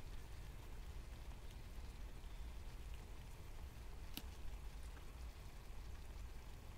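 Faint steady outdoor hiss with a low rumble underneath, a few light ticks, and one sharp click about four seconds in.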